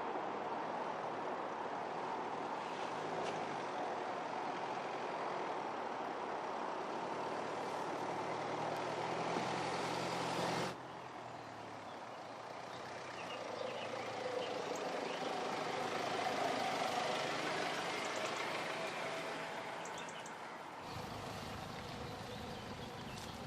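Mercedes-Benz GLC 300d SUV on the move: steady engine and road noise. It changes abruptly about eleven seconds in and again near the end.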